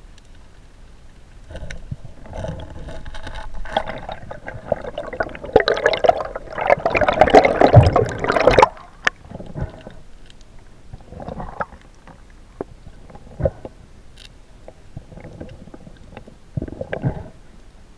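Water gurgling and rushing around an underwater camera, with knocks and clicks. It builds up over several seconds, cuts off suddenly about halfway through, and is followed by scattered clicks and short gurgles.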